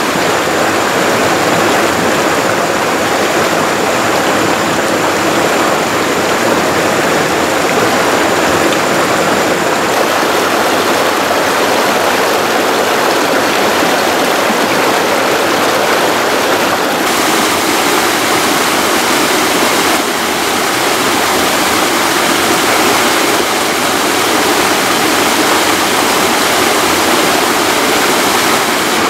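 Steady rush of a rocky mountain stream tumbling over small cascades, a dense water noise whose tone shifts slightly about ten and seventeen seconds in.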